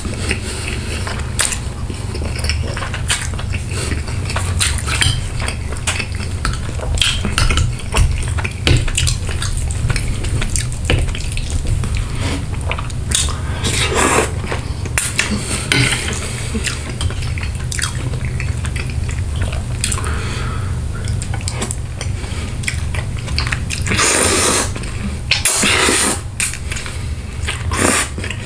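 Close-miked eating of spaghetti in tomato sauce with chicken parmesan: wet chewing and slurping of noodles, with a metal fork clinking and scraping on a ceramic plate. Short clicks run throughout, with a few louder slurps about halfway and near the end.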